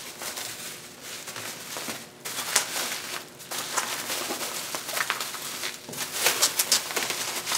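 Plastic bubble wrap crinkling and rustling as it is handled and wrapped around a glass bowl, with irregular crackles that grow busier near the end.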